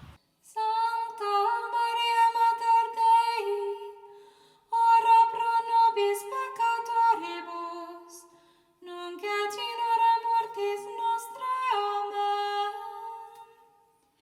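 A woman's voice singing a slow, plain melody in three phrases of about four seconds each, with short breaks between them.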